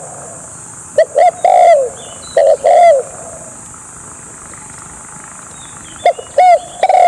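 Spotted dove cooing: three loud phrases of two or three low, hollow notes each, the last note of a phrase drawn out. The phrases come about a second in, at two and a half seconds, and again near the end.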